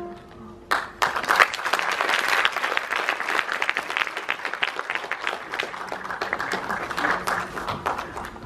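Audience applauding, breaking out less than a second in as the last piano chord dies away, a dense clapping that thins a little toward the end.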